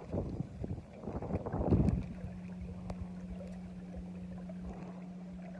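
Irregular knocking and rustling for about two seconds, then a steady low hum from the boat's motor.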